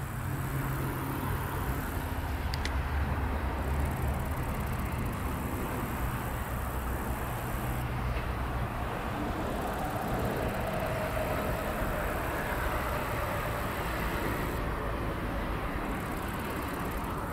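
Steady road traffic noise, with a low engine hum through roughly the first half.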